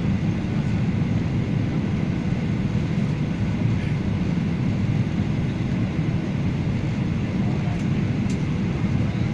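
Steady low rumble of an airliner's engines and airflow during its landing.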